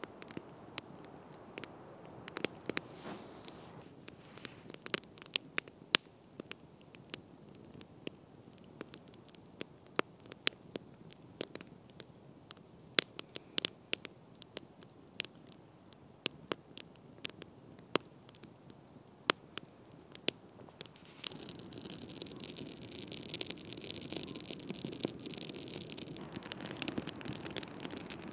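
Wood campfire crackling, with sharp, irregular snaps and pops over a steady hiss. About three-quarters of the way through, a louder steady rushing noise comes up underneath.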